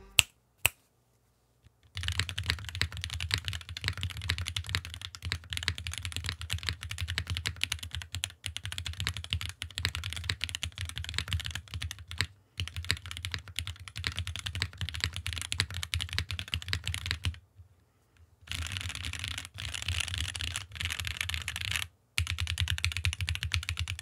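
Fast two-handed typing on a mechanical keyboard fitted with unlubricated Huano RAW linear switches (PA66 nylon housings, POM stems): a dense, rapid clatter of key presses, broken by two short pauses in the last third. A quiet-sounding switch, which a large hole in the housing helps keep quiet.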